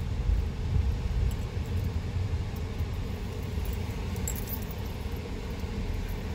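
Steady low rumble of a car being driven, heard inside the cabin: engine and road noise with no sharp events.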